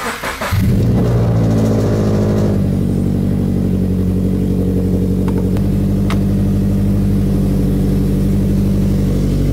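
Toyota GT86's flat-four engine firing up on a cold start. It catches about half a second in, runs at a raised speed for a couple of seconds, then drops to a steady idle.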